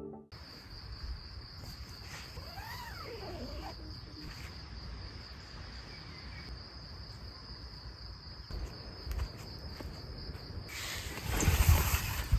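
Insects trilling steadily in one high, even tone. A faint call glides up and down about two seconds in. Near the end there is a burst of rustling and movement noise.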